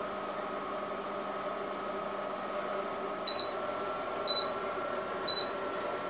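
Panasonic NE-1880 commercial microwave oven running with a steady hum, then three short high beeps about a second apart in the second half as its countdown runs out and the heating cycle ends.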